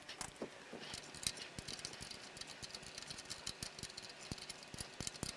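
Many small, light metal clicks and ticks of a wrench working on a motorcycle's front-fork cap, as the spring-loaded cap that holds the brake caliper's eccentric adjuster in position is fitted and tightened.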